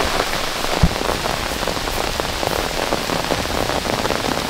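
Heavy rain falling steadily, a dense patter of drops, with a single low thump a little under a second in.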